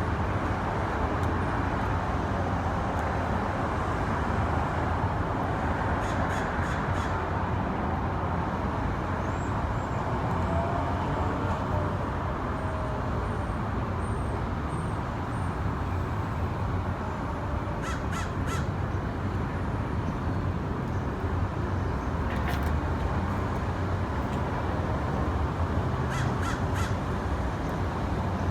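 Crows calling, a few short caws in small clusters, over a steady low background rumble.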